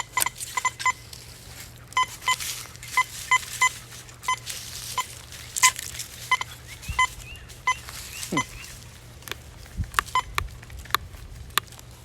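Teknetics Patriot metal detector giving short beeps at a single pitch as its coil is swept back and forth over a buried test target, a dozen or so beeps in singles and quick pairs that stop about two thirds of the way in.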